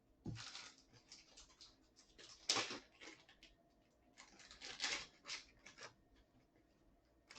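Trading cards and plastic card sleeves being handled on a table: scattered rustles and slides with a few light taps, the sharpest about two and a half seconds in.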